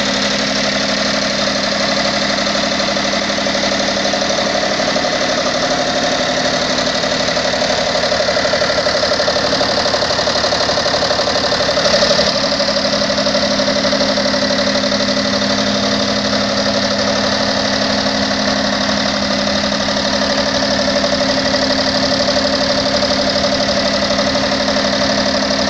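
1957 Commer TS3 three-cylinder two-stroke opposed-piston diesel engine running steadily, with a dense, fast beat and a brief swell about halfway through.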